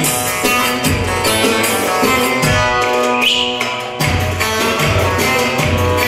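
Turkish folk music played on an amplified bağlama (long-necked saz), plucked rapidly, over a steady low drum beat.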